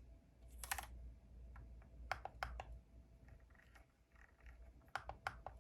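Keystrokes on a Glorious GMMK Pro 75% aluminium-case mechanical keyboard. A quick burst of clicks comes under a second in, then scattered single keystrokes and small groups of presses, with a last few near the end.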